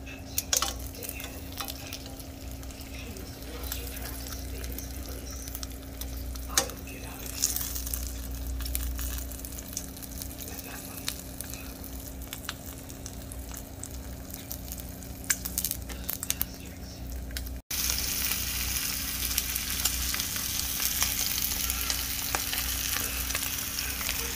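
Smoked steaks searing in a hot cast iron skillet: a steady sizzle with scattered pops and crackles from the fat. The sizzle jumps louder about three-quarters of the way through.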